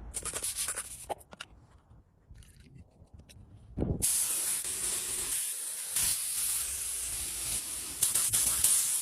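Aerosol spray can hissing in one long continuous spray that starts about four seconds in, after a few short clicks and spurts.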